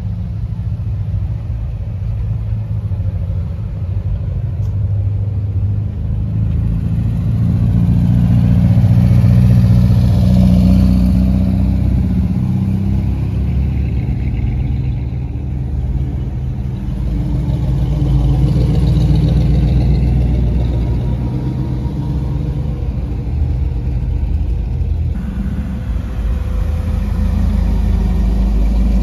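Classic American cars' engines and exhausts as the cars drive slowly past one after another, the sound swelling and fading with each passing car, loudest about a third of the way in and again about two-thirds in and near the end.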